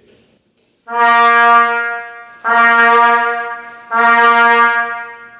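Trumpet playing the same long note three times, each held about a second and a half, the starts alternating between beginning on air alone and tongued with a 'D'. The first note swells in more gently; the second begins crisply.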